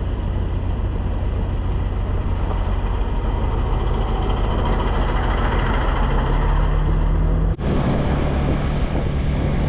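Small motor scooter running under way, a steady engine drone with a dense rushing noise over it; the engine pitch rises a little in the middle. It breaks off abruptly about three-quarters of the way through and picks up again at the same kind of level.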